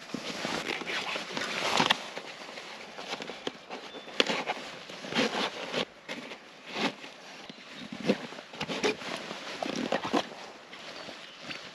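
Hands working a motorcycle dry-bag pannier and its nylon straps: irregular rustling and scraping of the bag and webbing, with a few sharp clicks.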